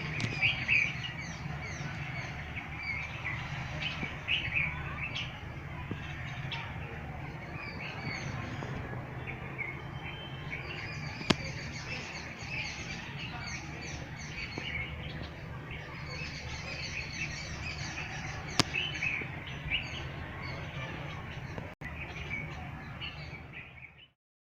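Small birds chirping and twittering over a steady low background hum, with two sharp clicks partway through.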